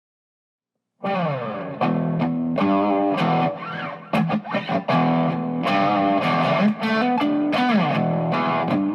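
Intro music with distorted electric guitar playing, starting about a second in after silence.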